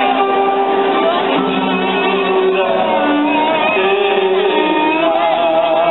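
A live band playing a song, with long held melodic notes that change pitch every second or so over a steady accompaniment.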